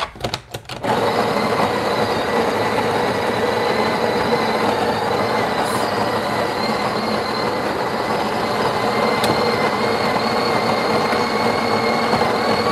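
Breville Barista Express's built-in burr grinder starts about a second in and grinds steadily, a constant motor drone with a few fixed tones, filling a portafilter for an espresso shot.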